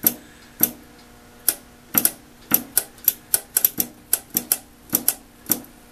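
The three-position range switch on a Schauer battery charger being snapped back and forth by hand: about twenty sharp clicks at uneven spacing, coming faster through the middle, over a faint steady hum. The charger only works when the switch is snapped down hard, which the owner takes for a bad, dirty switch that needs replacing.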